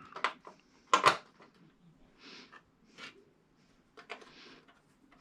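Scattered clicks and short scrapes of plastic and metal as LED backlight strips are pressed into their clips, with a louder click about a second in.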